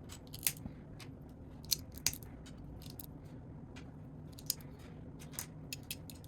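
Small plastic Lego pieces clicking and tapping as they are handled and pressed together: a scatter of single sharp clicks over a faint steady background hum.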